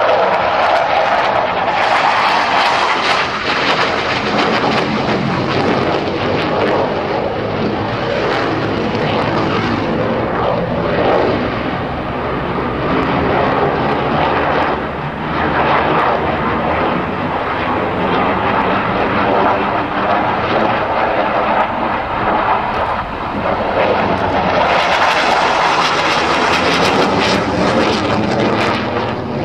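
MiG-29 fighter's twin RD-33 turbofan engines, loud and continuous as the jet manoeuvres overhead, with the pitch sliding as it passes. The sound turns brighter and harsher for the last few seconds.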